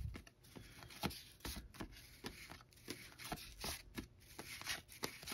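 1986 Topps cardboard baseball cards being flipped one at a time off a pack's stack: faint, quick flicks and taps of card on card, about three a second.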